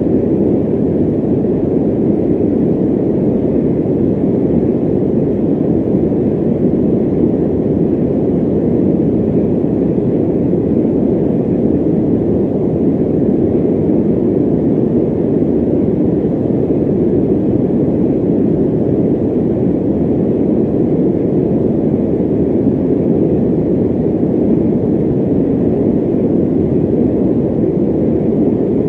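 Electric fan running with a steady, low whoosh that never changes.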